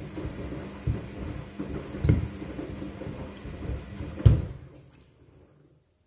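Front-loading washing machine drum tumbling shoes in water: heavy thuds as the shoes drop against the drum, over sloshing water, the loudest thud about four seconds in. The drum then stops and the sound dies away near the end.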